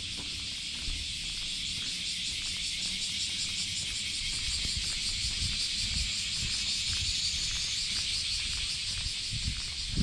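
Cicadas singing, a steady dense high-pitched drone with a fine pulsing texture, over soft irregular low bumps.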